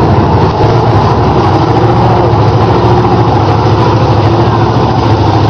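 Lifted Ford 4x4 mud truck's engine running loud and steady at low revs, with no revving or speech over it.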